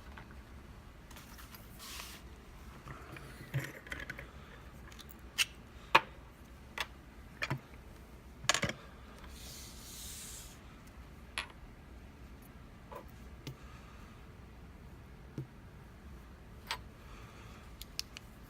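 Abus E20 lock being taken apart by hand after picking: scattered sharp metallic clicks and taps of tools and small lock parts, about a dozen in all and unevenly spaced, the loudest about six seconds in, with a brief soft rustle near ten seconds.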